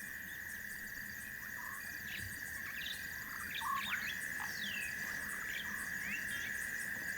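Night insect chorus: a steady, unbroken cricket trill, with a faint high pulsing above it. Short chirping calls and a few falling whistles, from birds or other night animals, come in every second or so.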